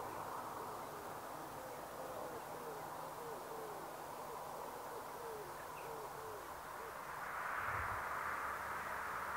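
A bird calling in a quick run of about a dozen short, falling hoot-like notes. Underneath is a steady outdoor background hiss that swells near the end.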